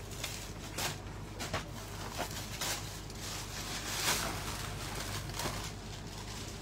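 Fabric rustling with small clicks and taps of handling as a folded suit is taken off a tabletop and the next one is brought in, with a louder swish about four seconds in.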